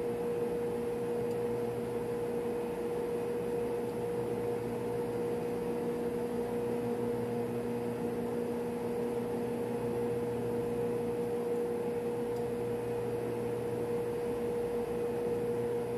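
Machinery in a refrigeration plant room running: a steady drone with a clear mid-pitched hum over it, unchanging.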